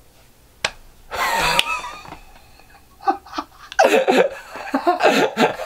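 A man's voice: a short, sharp breathy outburst about a second in, after a single click, then untranscribed mumbled vocal sounds from about three seconds on.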